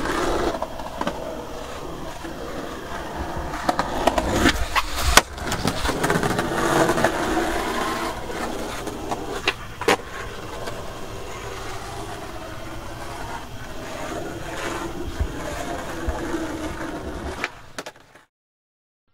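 Skateboard wheels rolling on asphalt, a steady rumble and hiss broken by a few sharp clacks of the board. The sound cuts to silence near the end.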